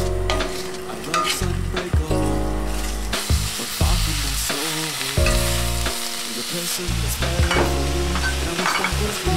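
Sliced red onions sizzling in oil in a frying pan, stirred and turned with a wooden spatula that scrapes and clicks against the pan.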